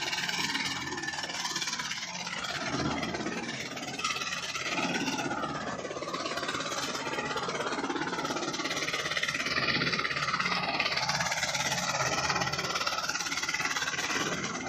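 Kubota MU5501 tractor's four-cylinder diesel engine running steadily, getting a little louder about nine seconds in.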